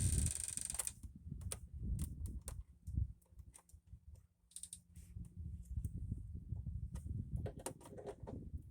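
Scattered small clicks and rattles of hand tools and parts being handled while working on a scooter's fuel line, with a short hiss in the first second.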